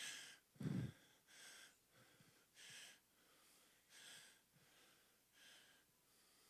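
Faint breaths of a man into a handheld microphone, one about every second and a half, with a soft low thump on the mic less than a second in.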